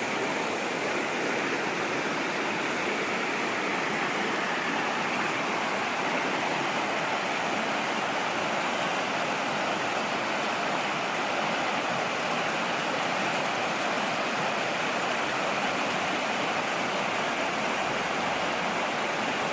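Mountain stream flowing, a steady unbroken rush of water.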